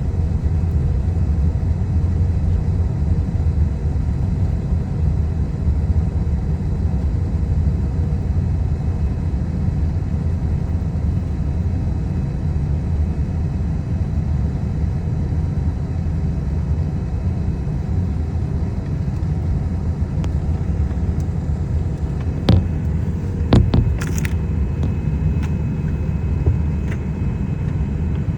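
Steady low rumble of a Boeing 777 airliner taxiing, with a few short sharp clicks a little past three-quarters of the way through.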